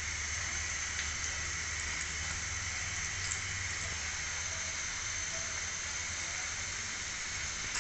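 Chicken vegetable rolls shallow-frying in hot ghee in a wok: a steady sizzle with an occasional faint pop.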